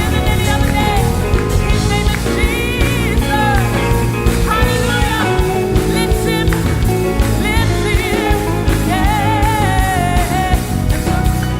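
Live praise-and-worship band playing, with drums and other instruments and a voice singing wavering melodic lines over them.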